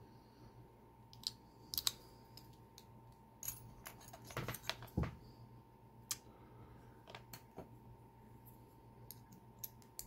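Scattered metallic clicks and clinks of a Mul-T-Lock Interactive padlock and its key being handled as the lock is opened back up, with a cluster of louder knocks about four to five seconds in.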